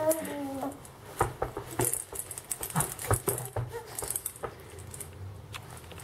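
Baby's plastic toy rattle shaken in a small hand: irregular clicks and rattles that stop about four and a half seconds in. It opens with a short coo from the infant.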